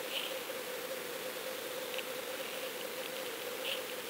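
Underwater fishing camera's own recording in the surf: a steady hiss with a steady whine, and a few brief faint crackles.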